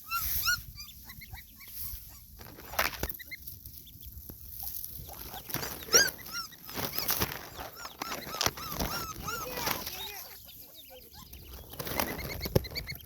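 Ducklings peeping: many short, high chirps overlapping throughout, with a few sharp knocks.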